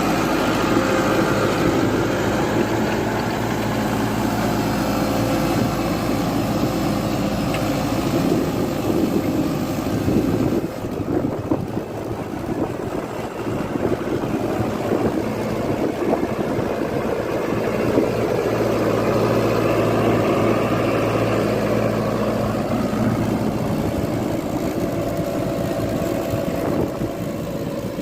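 YTO Eurotrak 904 tractor's diesel engine running steadily while ploughing. A little over ten seconds in, the steady engine note dips and turns rougher for a few seconds, then settles back.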